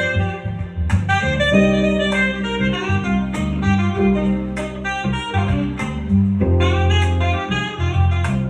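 Smooth jazz: a saxophone melody over guitar and a steady bass line.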